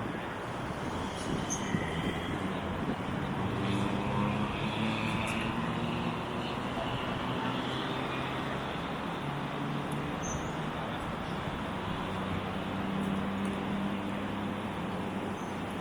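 Steady road traffic noise, a continuous wash of passing vehicles.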